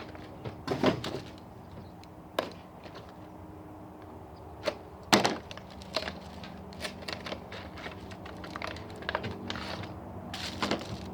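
Plastic and foil packaging of HeroClix booster packs being handled and torn open: scattered crinkles and sharp clicks, the loudest about five seconds in.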